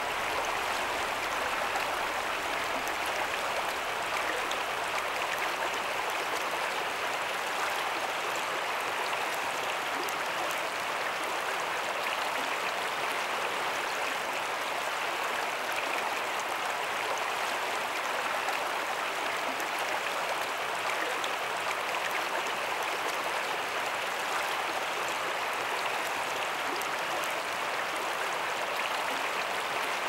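Shallow river current flowing, a steady, even rush of water.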